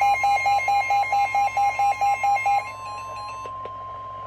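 NOAA Weather Radio 1050 Hz warning alarm tone, a steady single-pitched electronic tone, with a fast pulsing electronic alarm beep, about four to five beeps a second, layered over it until it stops about two and a half seconds in. The alert tone signals that a warning message is about to be broadcast.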